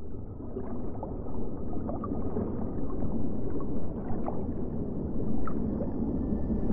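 Underwater ambience: a dense, muffled low rumble with faint scattered bubbling ticks.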